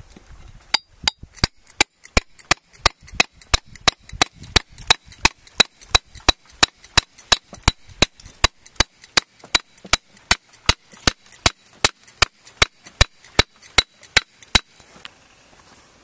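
A ribbed steel bar used as a chisel strikes repeatedly into the base of a bamboo clump, in a fast, even run of sharp blows about three a second, cutting through the rhizome that joins the clump to its parent. The blows stop about a second before the end.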